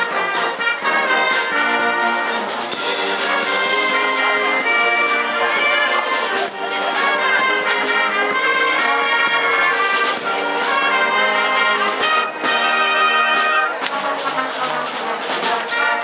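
School band playing brass-led music, with trumpets and trombones carrying the tune over a steady drum and cymbal beat.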